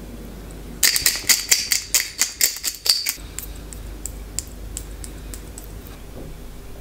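Hand pepper mill grinding black peppercorns: a quick run of crunchy clicks lasting about two seconds, starting about a second in, followed by a few light scattered ticks.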